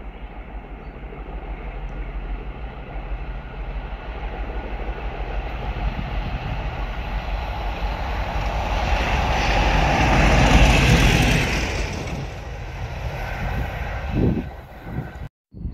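Class 50 diesel locomotive, with its English Electric 16-cylinder engine, approaching and passing on the line: the engine and wheel noise grows to its loudest about ten seconds in, then fades away. A short thump near the end, and the sound cuts off just before the end.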